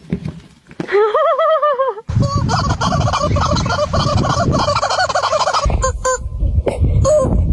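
An animal's warbling, wavering calls: a short one about a second in, a longer one from about two seconds in to nearly six, then a few short calls near the end, with loud low rumbling noise under the long call.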